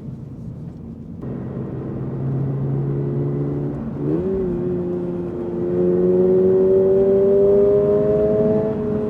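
Toyota GR86's 2.4-litre flat-four boxer engine pulling at a steady low note, then jumping up in pitch about four seconds in and climbing steadily and louder as the car accelerates, easing back just before the end.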